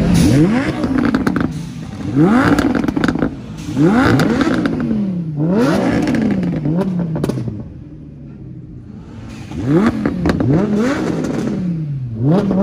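Audi R8's 5.2-litre V10 being revved hard while stationary: a series of quick blips, each rising sharply and falling back, with crackles as the revs drop. Near the middle it settles to a quiet idle for a couple of seconds, then the revving resumes.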